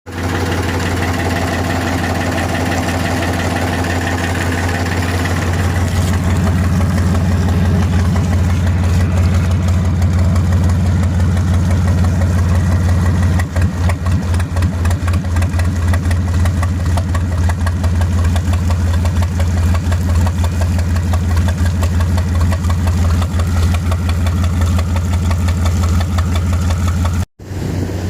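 A small fishing boat's engine running steadily with a deep, even hum. It gets a little louder about six seconds in, and the sound breaks off for a moment near the end.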